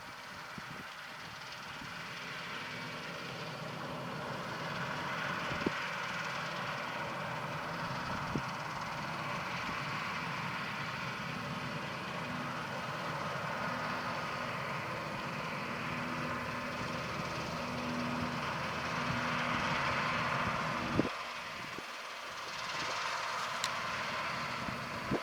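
John Deere 9650 STS combine running steadily as it harvests wheat, its engine and threshing machinery making a continuous mechanical hum that slowly grows louder, peaks about twenty seconds in and briefly dips soon after.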